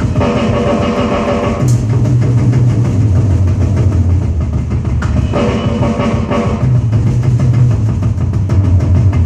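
Roland electronic drum kit played in a fast, busy rock beat, with a cymbal crash a little under two seconds in, over recorded rock music with a prominent bass line.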